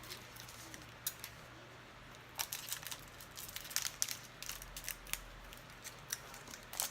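Trading cards and a foil card pack being handled: a scatter of short, sharp clicks and crinkles, busiest in the middle and again near the end.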